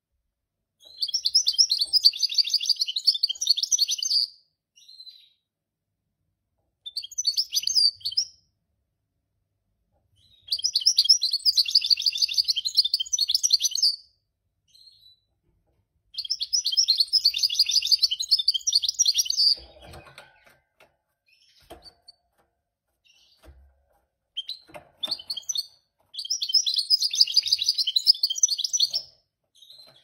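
Mule goldfinch (a European goldfinch × canary hybrid) singing a fast, twittering warble in phrases of about three seconds, with short pauses between and a couple of brief snatches.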